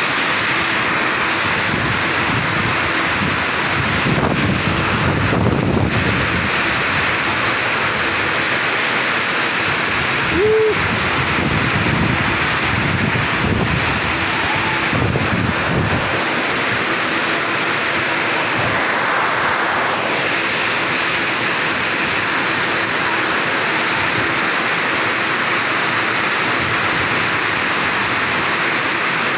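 Heavy rain pouring down, a loud steady hiss that does not let up.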